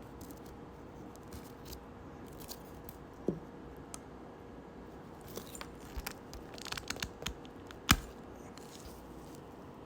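Wire cutters or strippers working on electrical wires being readied for splicing: a few scattered light clicks and snips, with one sharper snap about eight seconds in, over a faint steady hum.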